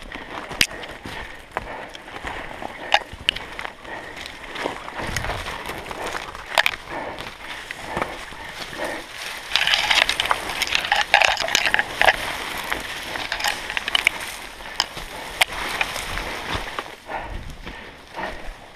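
Footsteps crunching through dry leaf litter and a person pushing through brittle undergrowth, branches scraping and twigs snapping throughout, with a denser stretch of rustling and cracking about ten seconds in.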